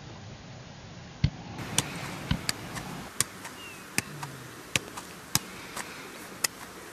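A football being juggled and kicked: about a dozen sharp, short thuds of foot on ball, unevenly spaced about half a second to a second apart, starting about a second in.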